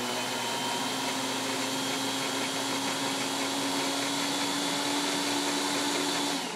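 Single-serve countertop blender running steadily at full speed, its blades puréeing herbs in oil and vinegar into a liquid sauce. The motor shuts off near the end and spins down.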